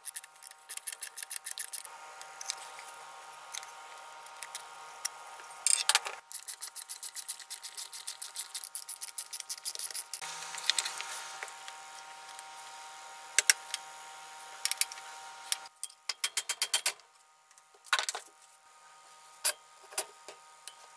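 Ratchet screwdriver clicking in rapid, even runs while screws are backed out of a metal power-tool housing, then a few separate metal clinks as parts are handled.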